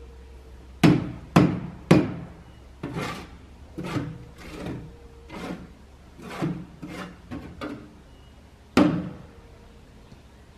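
A run of distant sharp knocks as a dump cart is struck with a long-handled tool. Three loud blows come about half a second apart about a second in, then softer, irregular knocks, then one more loud blow near the end.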